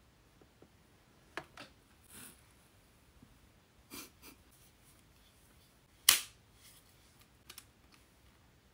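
Scattered light clicks and taps from handling a curling wand, with a brief soft swish of hair about two seconds in and one sharper, louder click about six seconds in.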